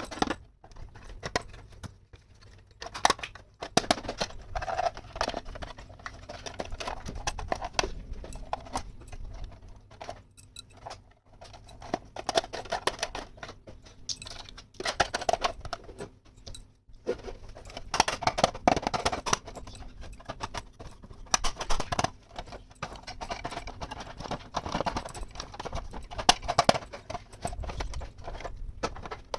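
Small plastic toy kitchen pieces being unpacked and handled: irregular clicks, taps and clatter, with short pauses between.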